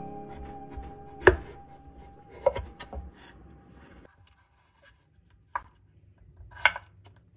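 Large kitchen knife chopping through a hard, mature pumpkin onto a bamboo cutting board: about five sharp chops of the blade striking the board, unevenly spaced, the loudest about a second in. Faint music fades out partway through.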